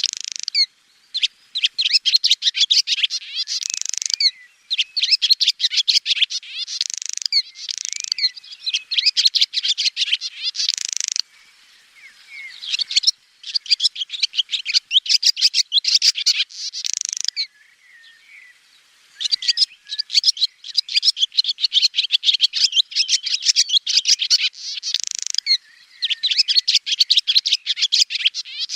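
Swallow singing: a string of quick, high twittering phrases, each one to three seconds long and often closing on a brighter, higher note, with short pauses between phrases and a longer one about two-thirds of the way through.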